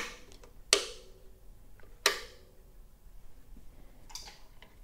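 Switches clicking on the control box of a Vevor rotary welding positioner as its direction and power switches are set: three sharp clicks, at the start, under a second in and about two seconds in, each with a brief metallic ring, and fainter small clicks near the end.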